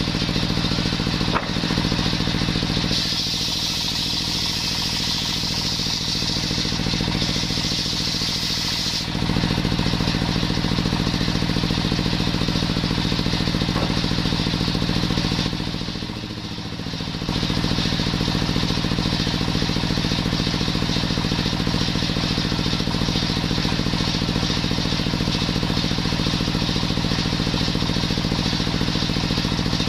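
Stationary engine runs steadily, driving a belt-driven circular saw bench. For about six seconds, starting about three seconds in, a higher hiss is added as the blade cuts coconut wood. The sound dips briefly a little past the middle.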